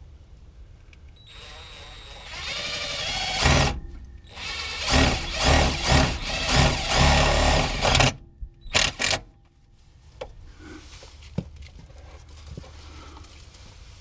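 Bauer 20V cordless drill running in bursts: the motor spins up in a rising whine, then runs in a series of short stop-start pulses and ends with two quick blips, driving a screw into the car's underbody to fasten the battery cable.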